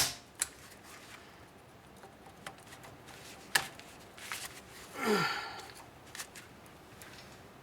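Snap ring pliers clicking against a steel snap ring in the wheel bearing housing: a few sharp separate clicks, and a short sound falling in pitch about five seconds in.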